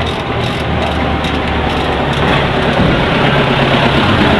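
A motor vehicle's engine running close by: a loud, steady low rumble.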